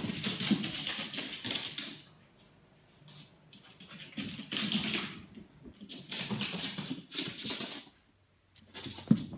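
A Ragdoll cat's paws and claws skittering on a hardwood floor as it dashes about in a bout of zoomies. Quick clicking, scrabbling runs come in about four bursts of one to two seconds, with short pauses between.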